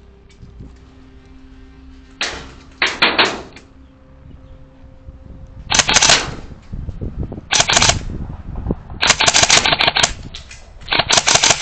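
Airsoft guns firing bursts of rapid shots, starting about two seconds in and coming more often toward the end.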